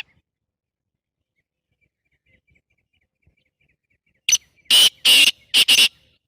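Black francolin calling: a short note about four seconds in, then three loud, harsh phrases in quick succession.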